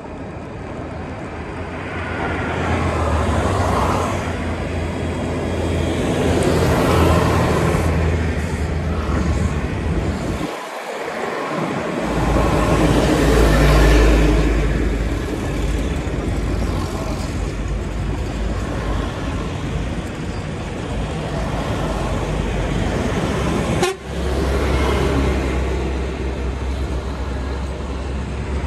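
Busy street traffic: vehicle engines running with a steady low rumble and horns tooting. The rumble cuts out briefly about eleven seconds in and drops suddenly once more near the end.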